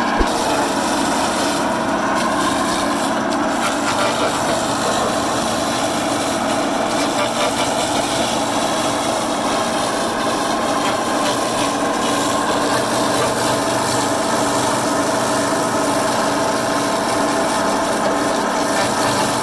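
Homemade band sawmill cutting a log: the band blade sawing through the wood over the steady running of the mill's engine. A single sharp click comes just after the start.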